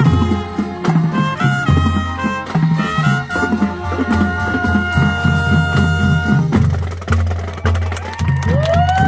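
Marching band playing: brass and woodwinds over a drumline's steady beat, with long held notes and a brass note that bends up and back down near the end.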